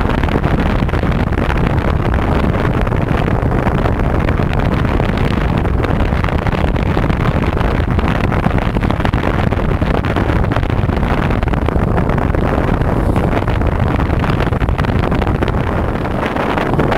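Steady wind buffeting the microphone on a motorboat under way, with the outboard engine and rushing water underneath.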